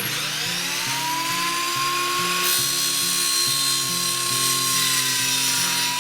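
Chop saw starting up, its motor winding up to speed with a rising whine and then running with a steady high whine. About two and a half seconds in a harsher hiss joins it as the blade cuts the aluminum angle.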